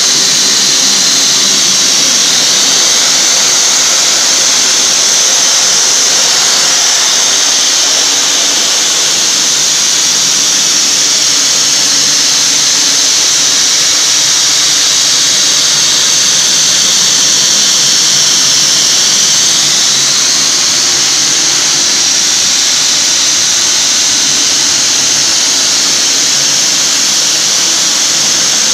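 Aerogommage nozzle blasting fine abrasive with compressed air against the sheet-steel floor pan of an old car chassis, stripping the paint down to bare metal. It makes a loud, steady hiss.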